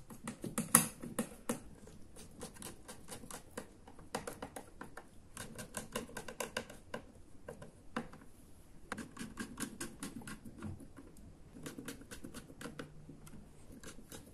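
Small hand screwdriver driving screws that hold the circuit board into the plastic case of a battery charger: runs of quick small clicks and scrapes, in several bursts with short pauses between.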